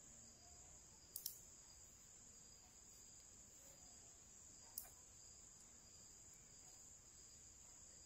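Near silence: a faint steady high-pitched hiss, broken by two brief faint clicks, one about a second in and one near the five-second mark.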